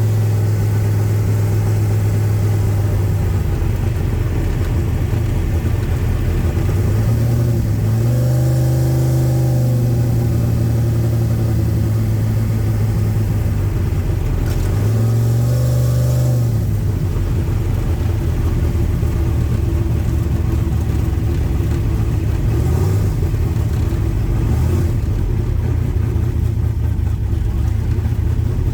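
Carbureted Camaro engine running, revving up twice with a rise and fall in pitch, about a third and about halfway through, between steadier stretches.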